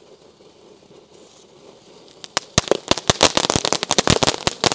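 Sky Pioneer 'Jungle Cruise' firework fountain spraying with a faint hiss, then a little over two seconds in it breaks into loud, dense, rapid crackling as its crackling stars go off.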